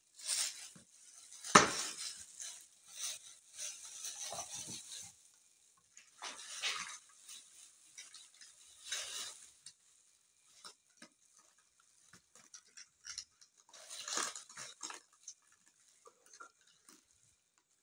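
Plastic bag crinkling and rustling in several bursts, with scattered light taps and scrapes of handling on a kitchen scale and cardboard. One sharp knock comes about a second and a half in.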